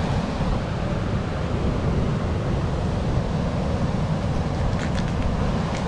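Steady wind buffeting the microphone, with the wash of surf behind it.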